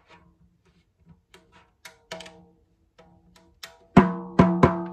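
Small metal clicks of a wrench working the tension hooks and nuts on a banjo rim. Near the end come three quick taps on the tightened goatskin banjo head, each ringing with a drum-like pitch.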